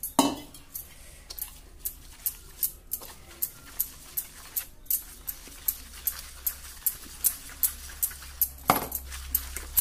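Wire whisk beating gram-flour batter in a stainless steel bowl, its wires clicking against the bowl in a steady rhythm of about three strokes a second.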